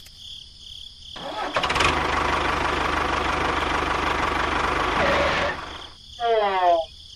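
An engine starting up and running steadily for about four seconds, then stopping abruptly. Near the end a short sound effect with a falling pitch follows.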